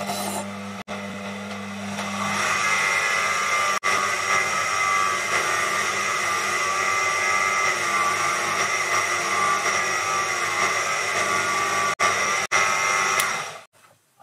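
Proxxon PD 250/e benchtop metal lathe running with a steady whine while a hand-held tool is worked against the spinning stainless steel part. The sound breaks off for an instant a few times and stops shortly before the end.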